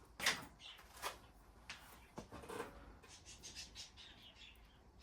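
Faint, scattered clicks and small scraping or squeaking sounds from handling small plastic wiring connector parts and clips by hand.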